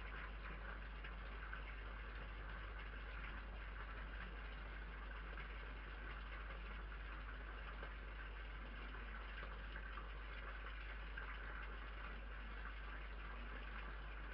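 Steady hiss with a constant low hum, the noise floor of a night-vision security camera's microphone.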